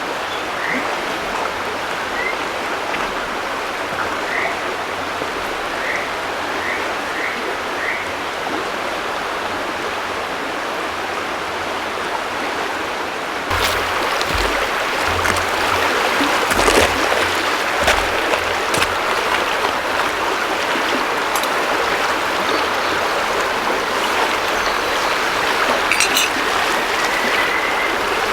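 Frogs giving short, repeated chirping calls over the steady rush of river water. About halfway through the water gets suddenly louder and closer, with a few scattered knocks.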